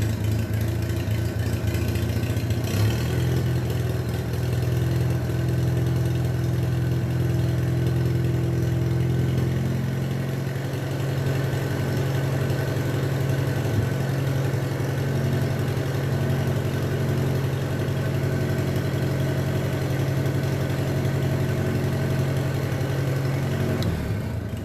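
Minneapolis-Moline BF tractor's freshly rebuilt four-cylinder engine running steadily at a low speed, its note rising slightly about ten seconds in; it sounds pretty good.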